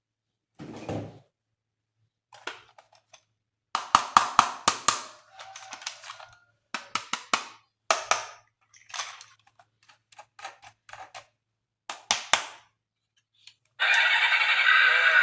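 Hard plastic toy parts and packaging being handled: a run of sharp clicks and knocks in quick clusters. Near the end a toy's electronic sound effect starts, loud and steady with many tones at once.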